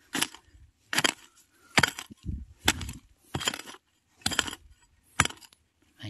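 Iron hoe chopping into soil, about seven strokes a little under a second apart, digging out bamboo shoots.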